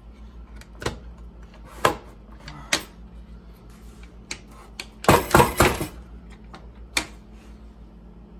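Sharp plastic clicks and knocks as the white plastic end piece of a Toyota Prius hybrid battery pack is worked loose from the cell stack, with a quick rattling clatter about five seconds in, the loudest part.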